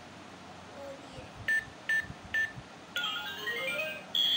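Toy ATM money box keypad beeping three times, about half a second apart, as a PIN code is keyed in. About three seconds in, the toy starts playing a short electronic tune in rising steps, louder than the beeps.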